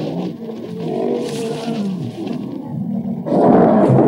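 Lions growling as they fight, turning much louder and harsher a little over three seconds in.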